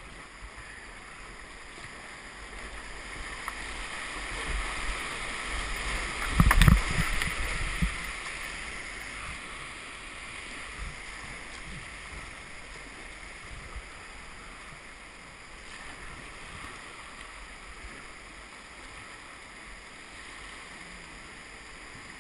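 Whitewater rapids rushing around a kayak as it runs a river drop. The rush builds over the first six seconds to a loud burst of splashing and thumps about six and a half seconds in, with another hit about a second later, then settles into a steady rush of rapids.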